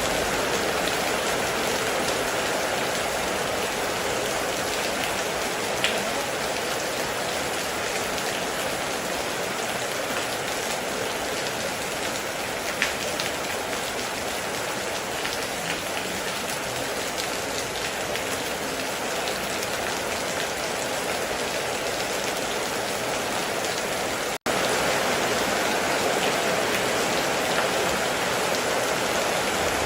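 Steady heavy rain, an even wash of falling water with a few louder single drops striking near the microphone. The sound cuts out for an instant about 24 seconds in, then resumes.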